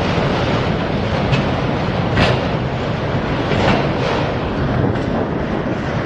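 Freight train passing close by, a loud steady rumble of rolling cars with a few sharp metallic clanks.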